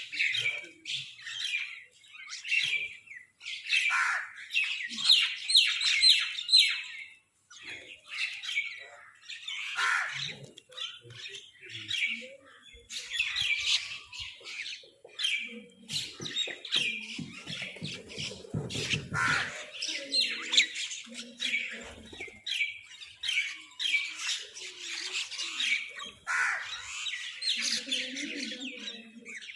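Crows squawking and cawing, many short calls one after another with little pause. A low rumble comes in briefly around the middle.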